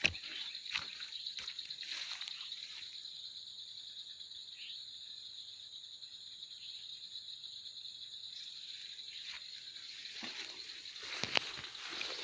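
Steady, high-pitched chorus of swamp insects, with a second higher insect tone joining for a few seconds in the middle. A few sharp clicks and knocks come near the start and again near the end.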